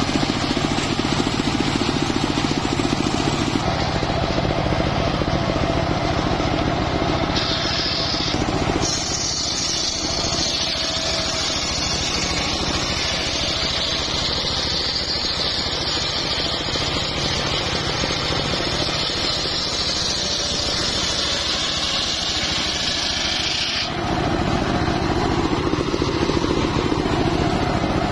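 Homemade circular sawmill's large blade ripping a big sengon (albizia) log lengthwise, with the machine's engine running steadily underneath. About nine seconds in, the cutting turns into a loud, high hiss that stops a few seconds before the end.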